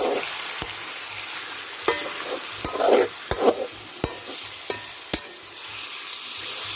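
Chicken pieces sizzling in hot oil with sautéed onion, garlic and ginger while being stirred, with a steady hiss and scattered sharp clicks of the utensil against the pan. The sizzling surges briefly about three seconds in.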